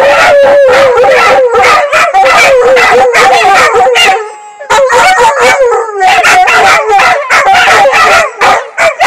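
Two or three dogs howling together, long wavering howls mixed with sharp yips and barks, with a brief break a little over four seconds in. The howling is set off by a siren, which these dogs react to with distress.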